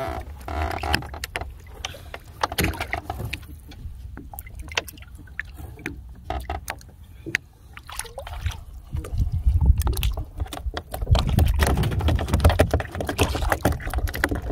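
Sea water sloshing and splashing against the side of a small fishing boat while a longline is hauled, with many short clicks and knocks. A low rumble runs underneath and grows louder in the second half.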